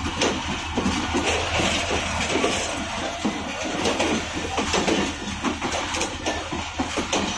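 Passenger coaches of a train rolling past close by: a steady rumble from the wheels on the rails, broken by continual irregular clanks and clatter.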